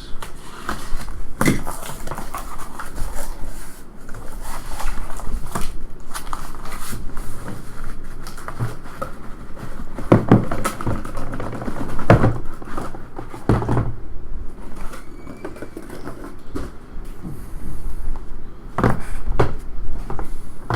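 Cardboard trading-card hobby boxes being handled as a fresh case is opened and unpacked: steady rustling and scraping of cardboard, with several sharp knocks as boxes are set down on the table.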